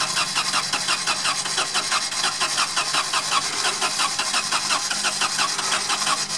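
Starter motor cranking the stuck off-roader's engine over and over in a fast even rhythm, about seven strokes a second, without the engine catching. A steady low engine hum runs underneath.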